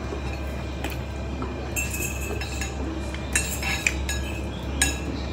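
Metal fork clinking against a bowl several times while eating, short light clinks with a brief ring, over a steady low hum.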